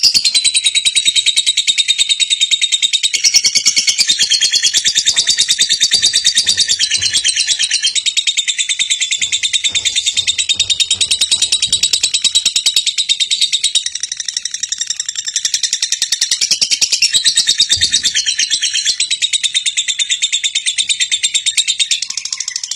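A bird chirping high-pitched in a fast, even stream of chirps without a break.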